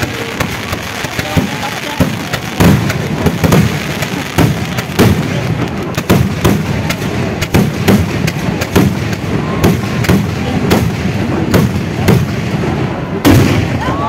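Fireworks display: aerial shells bursting overhead in a rapid, irregular barrage of bangs, several a second, with a louder burst near the end.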